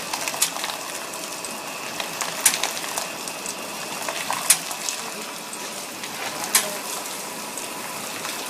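Bottle washing machine running: a steady hiss of water spray, with sharp clicks about every two seconds.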